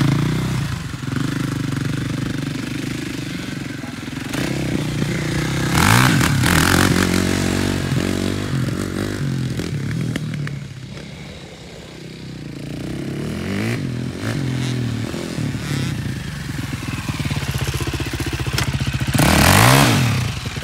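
KTM 450 SX quad's single-cylinder four-stroke engine revving hard in bursts as it accelerates. It fades with distance in the middle and comes back loudest near the end.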